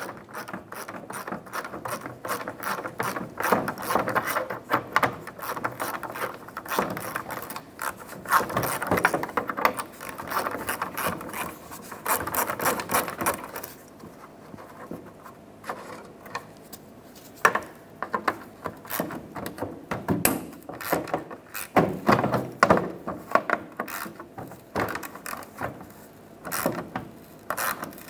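Ratchet wrench with a 7mm socket clicking rapidly as it backs out the license plate light bolts, in a long run of clicks for about the first half, then after a short lull more scattered clicks and small knocks of tool on metal.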